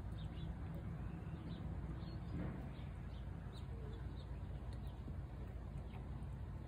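Faint, scattered bird chirps over a steady low background hum.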